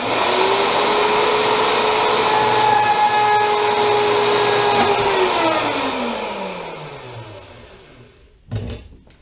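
A mains-powered electric motor runs at a steady full speed, then is switched off about five seconds in and winds down with a falling pitch over several seconds. A single knock comes near the end.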